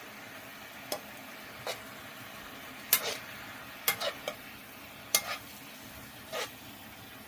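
Fish cakes being stir-fried in a pan: a utensil scrapes and clacks against the pan about seven times over a low, steady sizzle.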